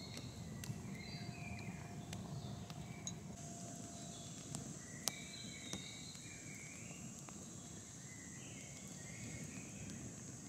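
Wood campfire burning with a low steady rush and a handful of sharp crackles and pops. Songbirds chirp throughout, and a steady high insect buzz comes in about three seconds in.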